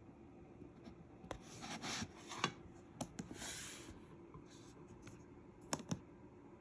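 Hands handling a charging cable and its connectors: light rubbing and scraping with several sharp clicks, two of them in quick succession near the end.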